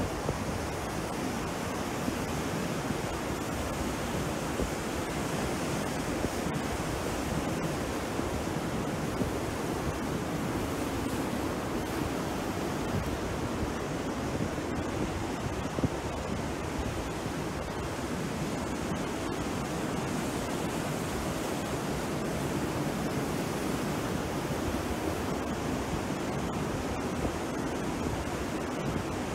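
Sea surf breaking and washing onto a beach, a steady rushing noise with no clear rise and fall of single waves.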